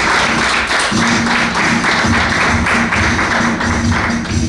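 Peruvian marinera music with a steady beat, playing for the dance.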